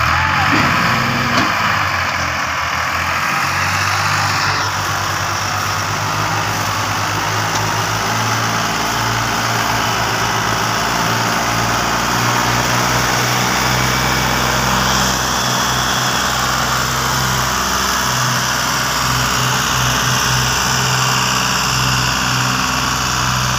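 Fiat 480 tractor's three-cylinder diesel engine running under heavy load as it pulls a fully loaded sugarcane trailer, a steady low engine note with a rough noisy edge.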